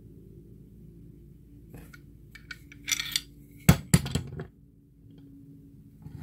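Metal clinks and knocks from an AK-pattern rifle's barrel and receiver being handled on a wooden workbench. A few small clicks come first, then two sharp knocks close together, with a faint low hum underneath.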